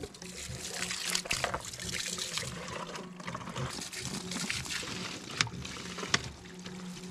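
Campfire burning well, crackling steadily with a few louder pops, over a faint steady low hum.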